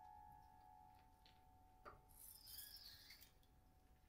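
The ringing tail of a note on a prepared grand piano fades away, then a small click about two seconds in and a faint rubbing, clinking noise as objects are handled on the strings inside the piano.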